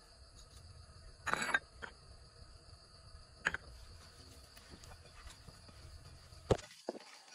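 Hands handling raw eel and frog meat in a ceramic bowl while spices are sprinkled on and mixed in: a short rustling burst about a second in, then a few sharp clicks and knocks. Under it runs a steady high chirring of insects.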